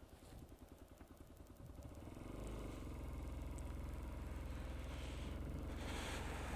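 Hero XPulse motorcycle's single-cylinder engine running on the ride; it picks up and grows louder about two seconds in, then holds steady. A rush of wind noise comes in near the end.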